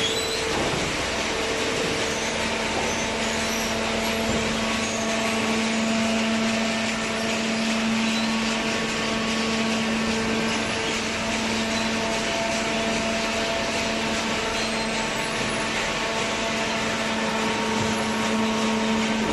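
Hydraulic baling machine running: a steady motor-and-pump hum with hiss, a low hum tone settling in about two seconds in and holding.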